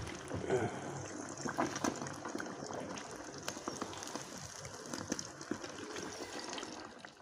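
Marinated fish deep-frying in hot oil in an iron kadai: a steady sizzle and bubbling with many small crackles and pops throughout.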